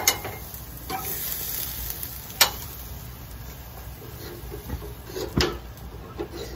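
Lamb sizzling on a gas grill, with sharp clacks of metal tongs against the grate and a plate as the pieces are lifted off. The loudest clacks come right at the start and about two and a half seconds in, with a few softer knocks later.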